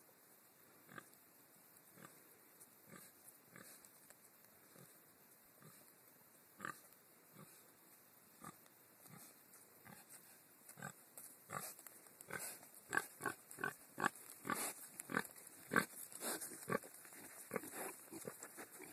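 Pigs grunting as they come home, a Tamworth sow with her Tamworth x Large Black piglets: short grunts about once a second at first, then louder and quicker from a little past halfway as they come close.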